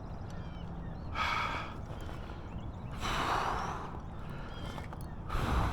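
A man breathing out heavily three times, short sighs or puffs of breath about a second, three seconds and five and a half seconds in, over a steady low rumble.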